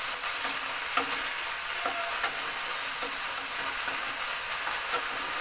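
Potato sticks sizzling steadily as they fry in mustard oil in a non-stick kadai, being stirred and turned with a spatula that scrapes lightly against the pan every second or so.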